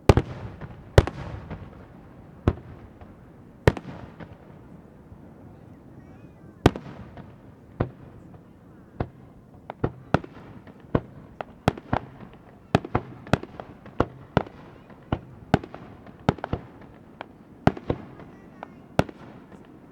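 Aerial firework shells bursting: sharp reports, each trailing off, spaced a second or more apart at first and coming quicker, several a second, from about halfway through.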